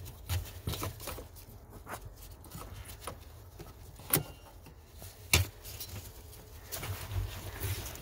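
Handling noise of a gloved hand working a plastic brake light switch and its wiring into place behind a car's brake pedal: light rustling and small knocks, with two sharp clicks about four and five and a half seconds in.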